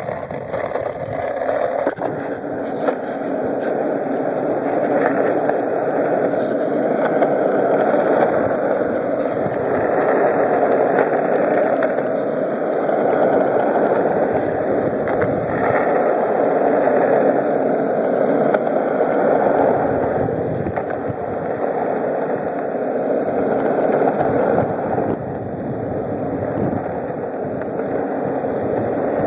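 Longboard wheels rolling on asphalt: a steady rolling rumble that grows louder over the first few seconds, then holds with gentle swells.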